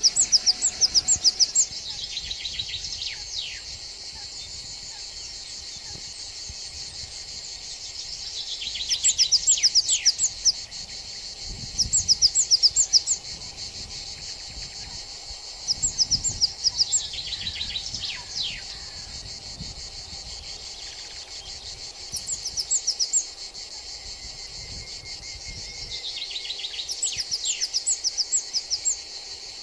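Steady high insect chorus, broken every few seconds by loud bursts of rapid clicking chirps, with a small songbird's short descending phrases now and then.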